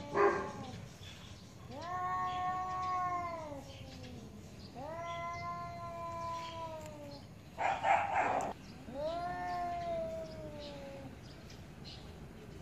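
Domestic cats yowling at each other in an angry standoff: three long, drawn-out caterwauls of a few seconds each, each rising, holding and then sinking in pitch. Short harsh bursts break in right at the start and again about eight seconds in.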